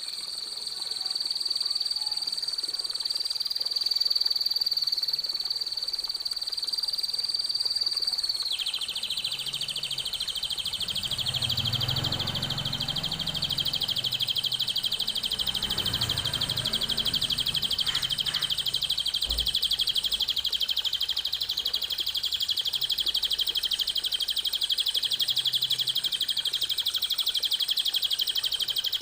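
A songbird's continuous, very rapid high trill, played as a bird-song training recording; the trill steps slightly lower in pitch about a third of the way through and carries on unbroken.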